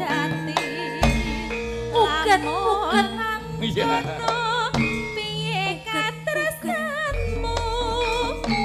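Javanese gamelan music with a female sinden singing a wavering, heavily ornamented vocal line over metallophones and kendang drum strokes. A deep gong sounds about a second in and again near the end.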